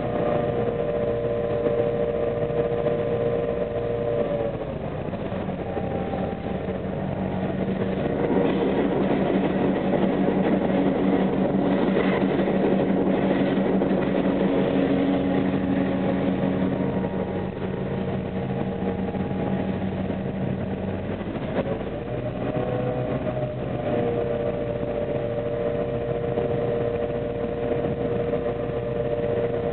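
EMD F7 diesel locomotive running under way, heard from its cab: the 16-cylinder 567 diesel engine and the steady whine of the running gear. The whine drops in pitch about four seconds in, a deeper steady note takes over for the middle stretch, and a little after twenty seconds the pitch rises again.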